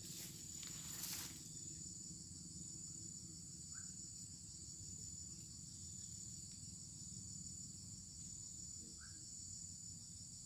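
Steady, high-pitched chorus of insects with an even, fast pulse, over a low steady rumble. A brushing rustle sounds in the first second, and a few short single chirps come later.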